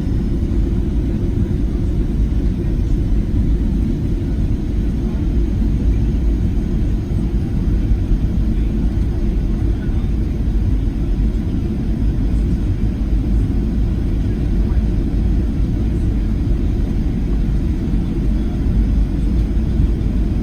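Steady low rumble heard inside the cabin of a Boeing 737-700 airliner, from its CFM56 jet engines and the airflow. It holds even throughout, with no distinct events.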